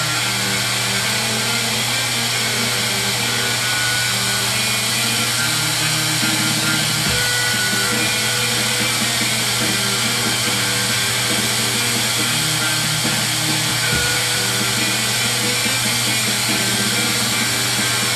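Glassblowing bench torch flame hissing steadily, with music playing alongside.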